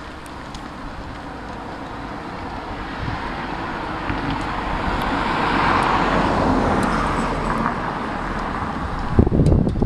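A car passing along the street: its noise swells to a peak about six seconds in, then fades. Near the end comes a short burst of loud, low, rumbling buffeting on the microphone.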